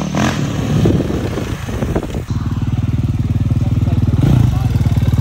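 A motor vehicle engine running at a steady idle. It comes in loud about two seconds in, with fast, even pulses.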